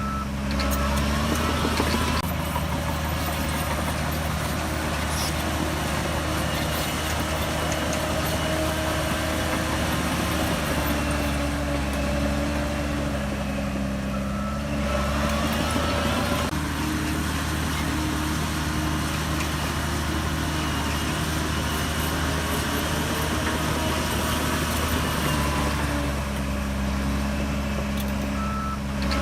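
Shantui DH17C3 bulldozer's diesel engine running steadily while the dozer works, its pitch rising and falling twice as the engine speed changes.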